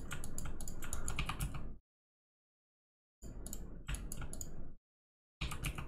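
Computer keyboard keys clicking in three short rapid runs, with dead silence between them.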